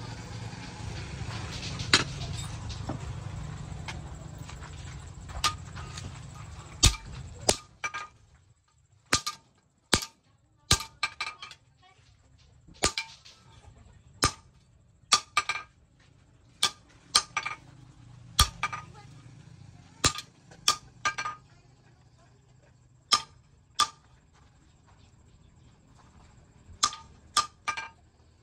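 Hand hammer striking a red-hot steel bar on a steel anvil, about two dozen ringing strikes in irregular pairs and threes with pauses between. For the first seven seconds a steady low rumble runs under the strikes, then stops.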